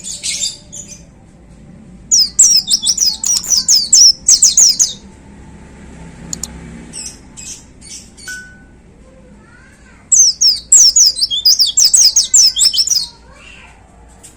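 White-eye (pleci) singing in two rapid-fire bursts of fast, high, down-slurred notes, the 'tembakan' (shooting) song style prized by pleci keepers. The bursts come about two seconds in and about ten seconds in, with a few short chirps between them.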